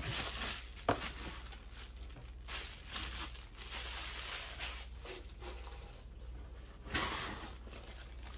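Clear plastic bag crinkling and a small cardboard lockset box being torn open, with a sharp tap about a second in and a louder rustle near the end.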